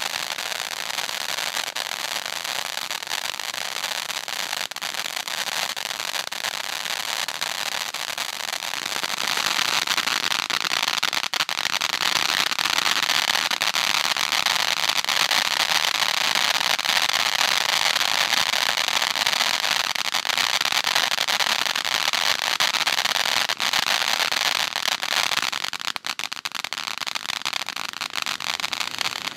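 An "Amazing" fan-shaped consumer fireworks cake firing low fountains of sparks: a continuous hiss thick with crackling. It gets louder about nine seconds in and thins to scattered cracks near the end.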